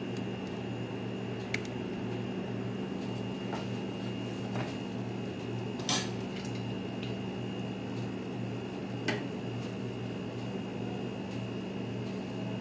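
A steady mechanical hum with a thin high whine, with a few short clinks from the stainless steel cooking pot and its lid; the loudest clink comes about six seconds in.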